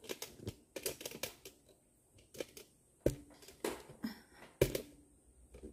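Handling noise: an irregular string of light clicks and knocks as small objects and cases are moved about on a tabletop, with two louder knocks about three seconds and four and a half seconds in.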